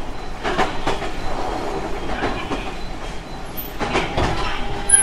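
Running sound of a JR Kyushu 817 series 1000-subseries electric train: the wheels clack over rail joints in pairs about every second and a half, over a steady rumble and a faint steady hum.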